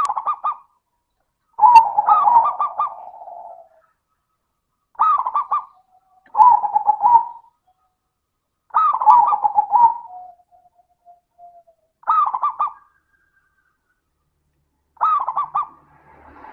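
Zebra dove (perkutut) cooing: short, rolling phrases of quick, fairly high coos, seven of them a few seconds apart with silence between. Some phrases trail off into a softer, lower note.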